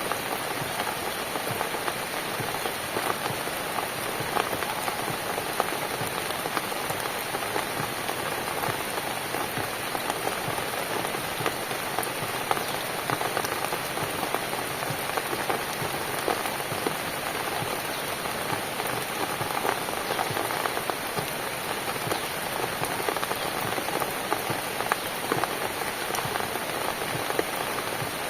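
Steady rain falling on a cabin, a dense even hiss with many close individual drops pattering on a surface.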